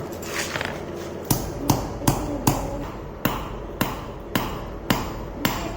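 A hammer striking steel in a run of about nine blows, roughly two a second, starting about a second in: hand forging of a knife blade. A low steady hum runs underneath.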